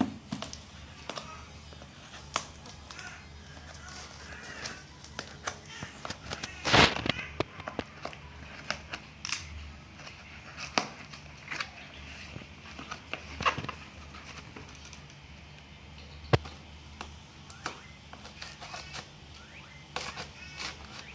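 Cardboard box being handled and its packing tape picked at and cut with scissors: scattered scrapes, taps and rustles, with a louder scrape about seven seconds in and a sharp click later on.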